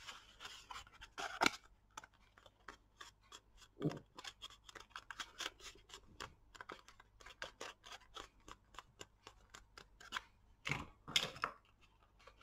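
Hands handling and pressing a cardstock pillow box whose glued side is setting: many small clicks, scrapes and rustles of card, with a few louder rubs about four seconds in and near the end.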